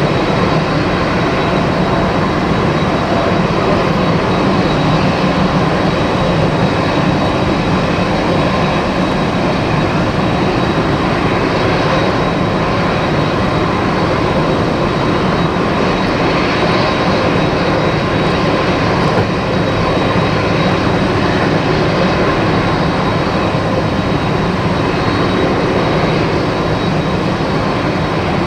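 Boeing 767 jet engines running at steady power, a continuous loud rush of noise with a steady high-pitched whine over it.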